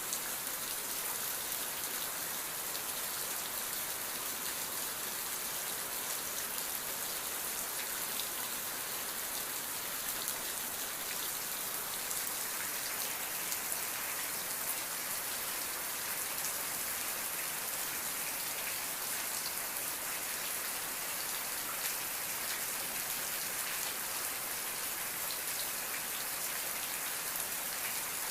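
Steady rain falling, an even hiss of many drops with faint scattered patters on a surface.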